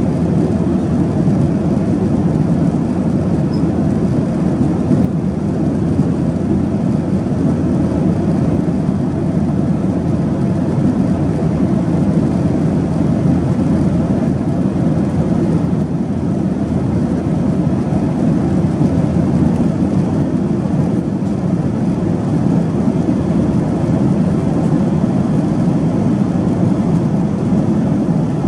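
Steady low drone inside the cabin of a Boeing 737-800 in flight: engine and airflow noise, holding an even level with no changes.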